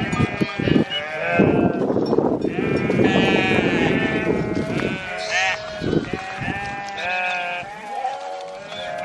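A flock of sheep bleating, many calls overlapping. A dense rush of noise runs under them for a few seconds in the first half.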